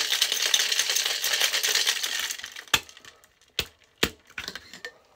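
Ice rattling hard in a cocktail shaker being shaken, stopping about two seconds in. Then a few sharp knocks and clinks as the shaker is broken open.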